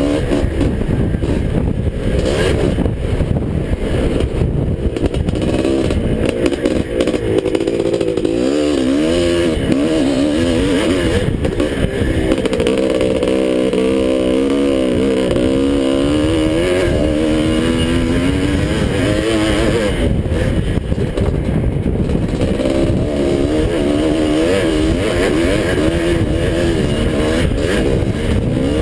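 1981 Husqvarna 430's two-stroke single-cylinder engine racing on a motocross track, heard from on board, its pitch rising and falling as the rider works the throttle through the bends and straights.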